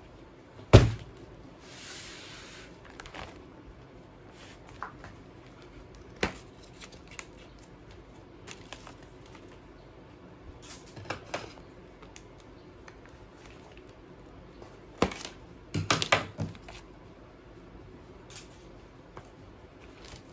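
A heavy plastic-wrapped parcel of books set down on a wooden desk with a thud about a second in, then sparse knocks and plastic rustling as the package is handled, over a low room hum.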